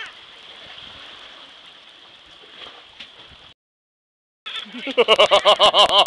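Seabird caught on a fishing hook calling in distress: a short 'ow'-like cry at the start, then a loud, fast string of the same calls, about seven a second, near the end. Between them, waves wash against the rocks, and the sound cuts out completely for about a second.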